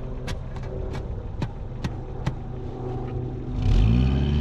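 1990 Ford Festiva's engine idling, with a few sharp clicks over the first couple of seconds. The engine then revs up under load about three and a half seconds in, as the car pulls forward onto a traction board in the snow.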